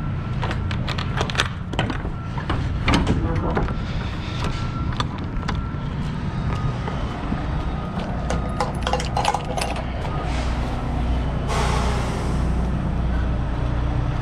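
Metal knocks and clanks of a semi-trailer's rear swing doors and their latch hardware being handled, over the steady low rumble of an idling diesel truck. A short burst of hissing comes about three-quarters of the way through.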